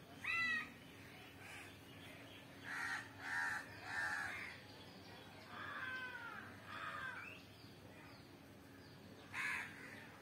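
A crow cawing repeatedly: about seven harsh caws in short groups, with a loud one near the start, three in quick succession a few seconds in, and one more near the end.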